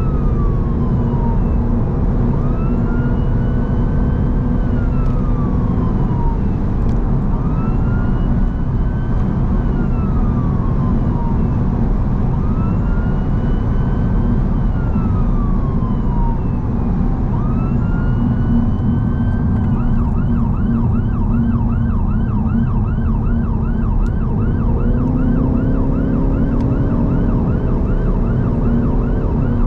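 Siren of an ambulance emergency response car on a 999 call, sounding a slow rise-and-fall wail that switches to a fast yelp about twenty seconds in, over steady road and engine noise heard from inside the car.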